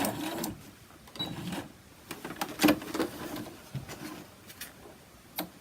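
Sewing machine stitching a test line through thick quilt layers, stopping just after the start; then scattered light clicks and rustles of the quilted swatch being handled.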